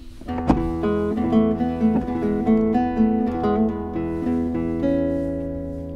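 Background music: an acoustic guitar picking a quick melody over a held bass note, settling into one ringing chord near the end that slowly fades.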